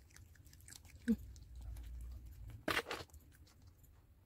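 Small Shih Tzu–Maltese dog chewing dry kibble: scattered short crunches, with one louder crunch just under three seconds in.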